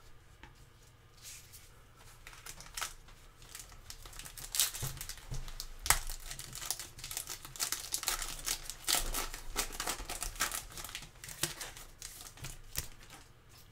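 Foil wrapper of a Select football trading-card pack being torn open and crinkled by gloved hands: irregular crackling that starts about two seconds in and dies away near the end, with a sharp snap about six seconds in.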